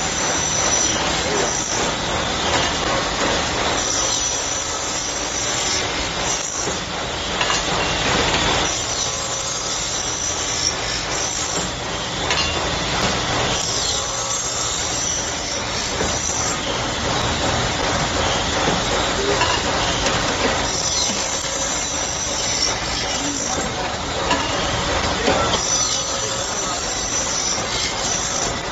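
Servo-fed CNC circular saw cutting metal pipe into short pieces: the machine runs steadily, and the blade screeches through the tube again every few seconds as each piece is cut off.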